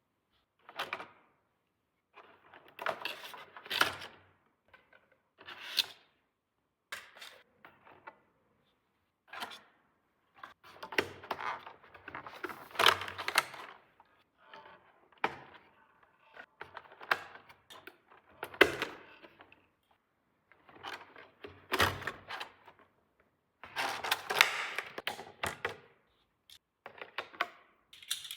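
Small plastic toy pieces being handled, clicked and set down: a string of sharp clicks and short clattering rattles with brief silent gaps between them.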